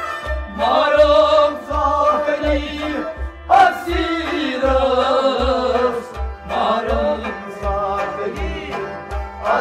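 Live Kashmiri sufi kalam: a male singer sings long, wavering, ornamented phrases over a steady hand-drum beat, with sustained instrumental tones underneath. The sung phrases break briefly about three and a half seconds in and again about six and a half seconds in.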